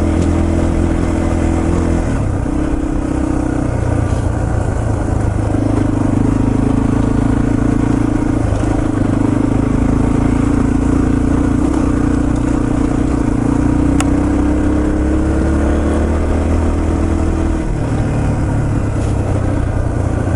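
Yamaha TT-R230 trail bike's air-cooled single-cylinder four-stroke engine running under way, its pitch stepping up and down several times as the throttle opens and closes.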